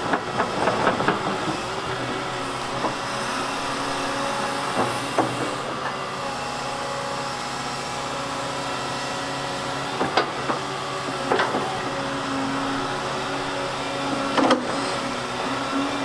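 Volvo crawler excavator's diesel engine running steadily under hydraulic load, with several sharp clanks from the bucket and stone scattered through.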